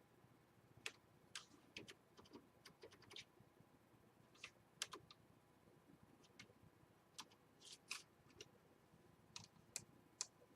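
Faint, irregular clicks from someone working a computer's keyboard and mouse, about twenty scattered taps with pauses between.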